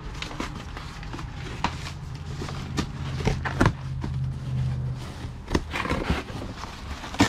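A cardboard box being handled and its flaps pulled and torn open, with rustling and several sharp knocks and crackles. A steady low hum runs underneath for the first five seconds or so.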